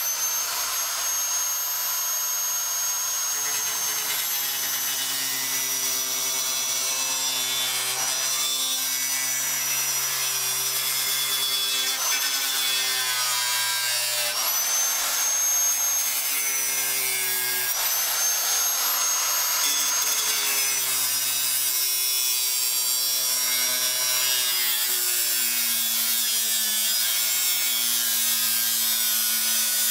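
Die grinder with a cutting wheel running at a high steady whine as it cuts the metal edge of a front fender, throwing sparks. Its pitch sags twice near the middle as the wheel bites and climbs back up as it frees.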